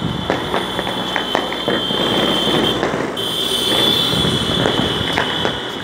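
Firecrackers and fireworks going off across the city, many irregular pops and cracks in quick succession. Under them runs a steady high-pitched whine that breaks off briefly about three seconds in.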